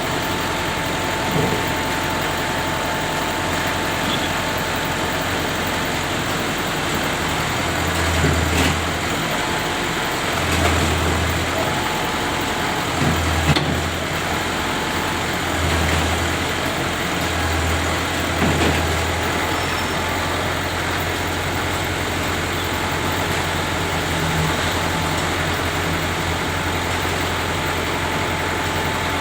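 Caterpillar D4 bulldozer's diesel engine running, with five short deep surges in its note between about 8 and 19 seconds in, then a steady deep hum.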